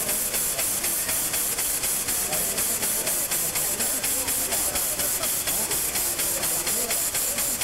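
Steady hiss of steam venting from the side of the standing Mitsubishi Type 80 steam locomotive No. 851, with a fast, regular pulsing through it.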